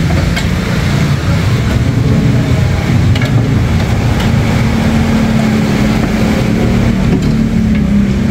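Steady low rumble of a running engine or similar machine, with a steady hum that comes in about five seconds in and a few faint clicks.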